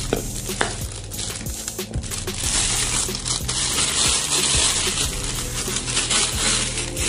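Plastic wrapping crinkling and rustling around a new stainless-steel motorcycle exhaust as the muffler and header pipe are handled, with scattered light clicks and knocks of the metal.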